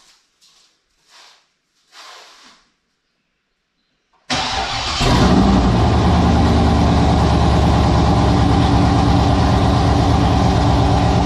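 C5 Corvette's V8 with a big aftermarket cam starting up about four seconds in, catching at once and settling into a loud, steady idle. It is the first start after the cam install, with the exhaust open just past the headers.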